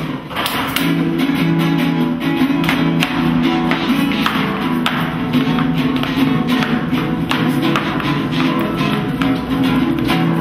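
Acoustic guitar strummed, playing chords in a steady rhythm.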